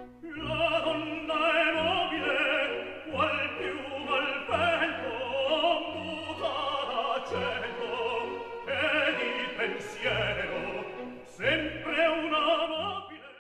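Background music only: classical, operatic music with a singing voice over orchestra, cutting off abruptly at the end.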